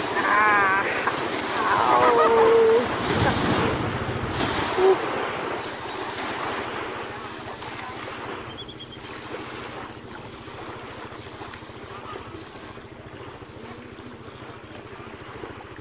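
Waves washing in the shallows of a tidal river, with wind rushing on the microphone. In the first three seconds, a person's excited cries. After that, the steady rush of water and wind slowly grows quieter.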